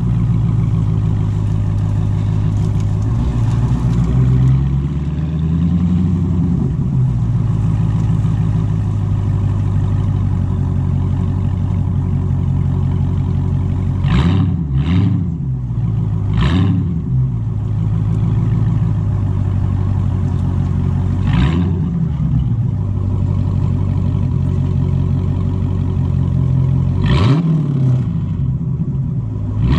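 Dodge Challenger T/A 392's 6.4-litre HEMI V8 heard through an exhaust with the mid mufflers swapped for Dynomax mini race bullets and the resonators removed, running steadily under way with a low drone. About halfway through and again near the end, the engine note briefly dips and climbs again several times, each change marked by a short sharp pop.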